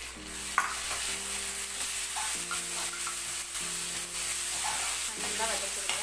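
Onions and ginger-garlic paste sizzling in a metal kadai while a steel ladle stirs and scrapes through them, with a few sharp clinks of the ladle against the pan.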